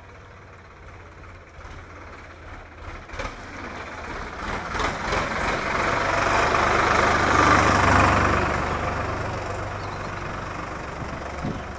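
A motor vehicle passes close by. The sound of its engine and tyres swells to a peak about seven or eight seconds in, then fades away.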